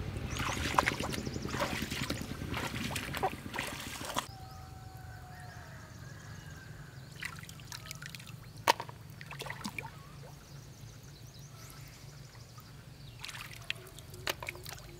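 Shallow muddy water splashing and sloshing as people wade and rummage through it by hand, busy for the first four seconds, then quieter, with trickles and drips from the hands and a few sharp clicks, the loudest about nine seconds in.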